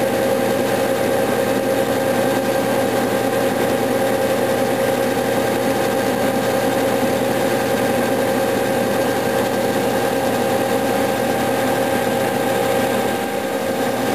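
A Clausing metal lathe running steadily with a constant mechanical hum, as its tool bit takes a slow, fine-feed cut along a tractor generator armature's copper commutator.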